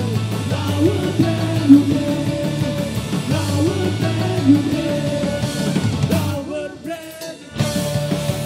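Celtic punk band playing: an electric violin melody over bass guitar and a drum kit, with a singer. The band drops out briefly about six seconds in and comes back in full about a second and a half later.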